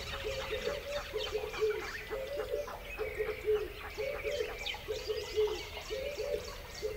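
Animal calls: short, low calls repeating in quick clusters of two to four, with thin high bird chirps scattered above them.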